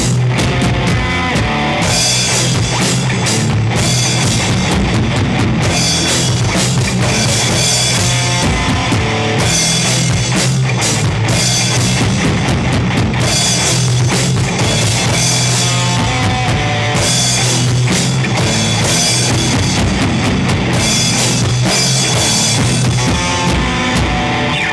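Instrumental passage of a heavy stoner/doom-metal song: a full drum kit pounding under bass and guitars, then the music cuts off suddenly at the end.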